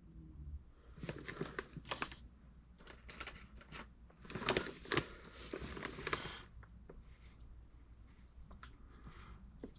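Light rustling, scraping and small clicks of copper plumbing fittings and tools being handled, in two busier spells with a quieter stretch near the end.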